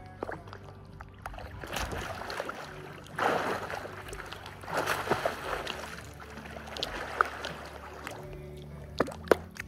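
Pool water splashing and sloshing around a person in full motocross gear and helmet struggling to stay afloat, weighed down by the gear in the deep end. There are two louder bursts of splashing about three and five seconds in.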